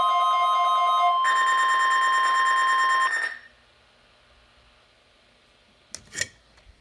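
NOAA Weather Radio warning alarm: a steady high tone, layered with an alert's rapid pulsing beeps that shift pitch about a second in. Both stop abruptly about three seconds in, and two sharp clicks follow near the end.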